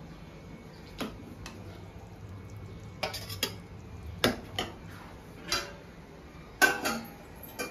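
A metal ladle clinking and scraping against a metal kadai and a steel plate as prawn curry is served out: a string of irregular sharp clinks, the loudest a little past halfway and again near the end.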